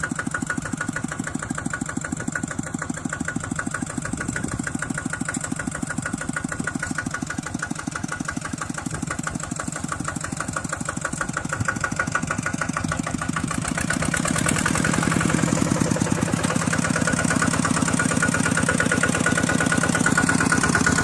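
Small engine running steadily with a fast, even beat, growing louder about two-thirds of the way through.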